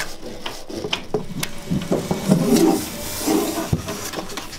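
Hand tool scraping and rubbing against the wooden ceiling boards and joists, with scattered clicks and knocks.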